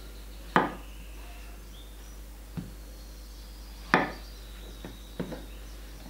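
Kitchen knife slicing button mushrooms on a wooden cutting board: sharp knocks as the blade goes through and hits the board. Two loud knocks come about half a second and four seconds in, with softer ones between.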